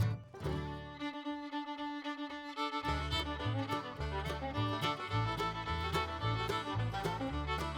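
Background music led by fiddle, in a country or bluegrass style. The bass drops out briefly about a second in and returns near three seconds.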